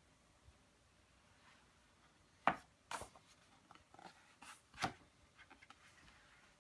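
Hardback photobook being opened and its thick blank endpapers turned by hand: a few sharp paper flicks and rustles, the first and loudest about two and a half seconds in, another pair a couple of seconds later.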